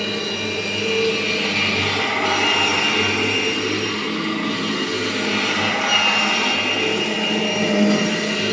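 1998 Kirby Generation 5 upright vacuum running: a steady motor drone with a high whine that comes in and fades again every three to four seconds.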